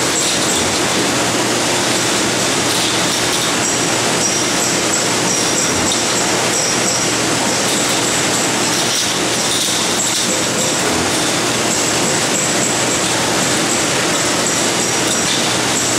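Steady, loud workshop machinery running continuously, with a high whine that comes and goes.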